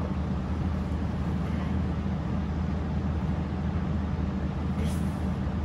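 A steady low hum from a machine or room equipment, running evenly without change.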